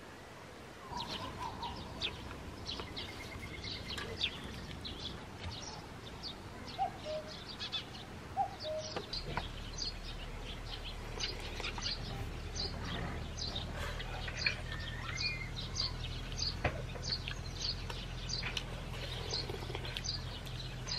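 Small birds chirping and twittering, many short quick calls. A low steady hum comes in about nine seconds in.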